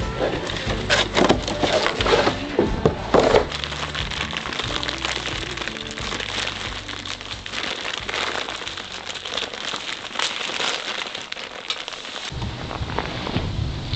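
Soft background music over packaging being handled: sharp scrapes and tears of a cardboard box being opened for the first three seconds or so, then a steady crinkling of a plastic bag of small hardware.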